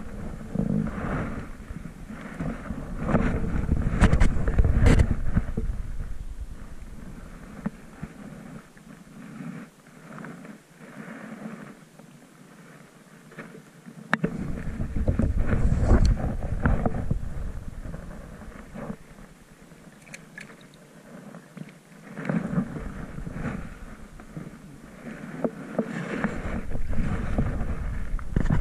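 Wind buffeting the microphone in gusts, with light water splashing and sloshing.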